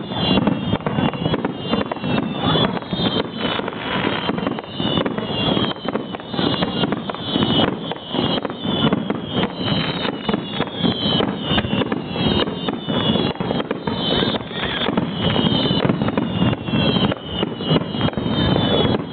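Fireworks finale: a dense, continuous barrage of shell bursts and crackle, with many short high whistles that fall in pitch, one after another throughout.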